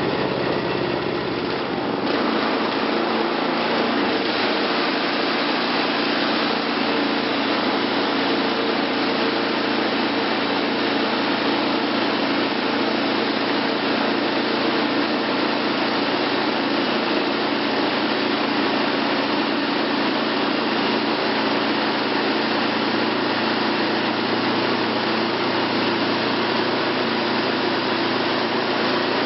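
Wood-Mizer LT20 portable band sawmill running steadily, with a change in its sound about two seconds in.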